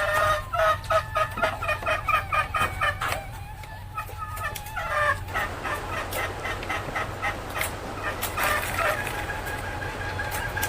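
Junglefowl hen cackling (ngekek): a rapid run of repeated clucking notes, about four to five a second, for the first three seconds, then another short run about five seconds in, followed by a denser stretch of calling. A steady low hum runs underneath.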